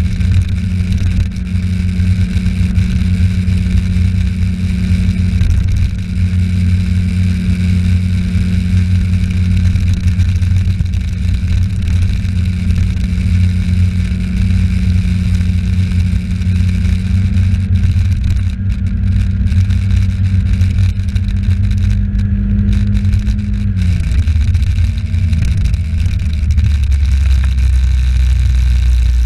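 Moped or scooter engine running steadily while riding, with road and wind noise. About 24 seconds in, the engine note drops as it slows, then it settles to a lower, steady running.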